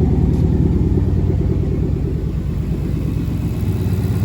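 2012 Ford Mustang GT's 5.0-litre V8 idling through an aftermarket MBRP exhaust, a steady low rumble. It eases slightly in the middle and picks up a little near the end.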